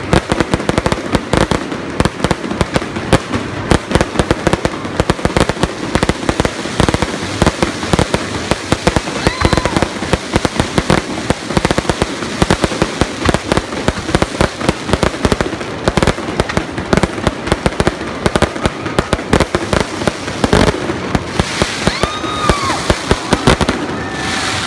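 Fireworks display going off in a dense, continuous barrage of rapid bangs and crackling.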